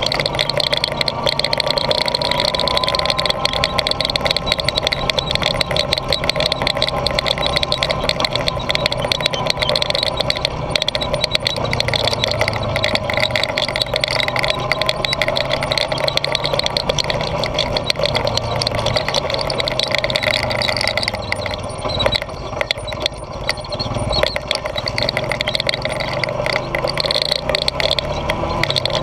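Honda ATV engine running steadily as the quad rides over a rough dirt track, heard from an on-board camera, with frequent knocks and rattles. The engine note eases briefly about two-thirds of the way through.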